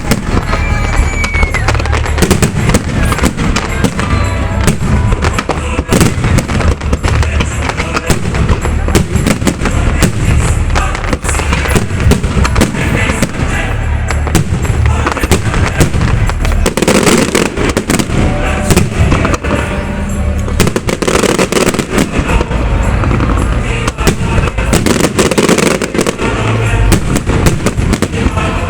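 Fireworks display going off in a rapid, continuous barrage of bangs and crackles, with deep booming rumble under them.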